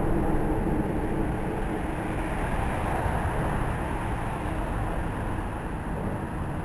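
Road traffic on a city street: cars driving past with a steady tyre and engine rumble, loudest at the start as a car goes by, then easing off a little.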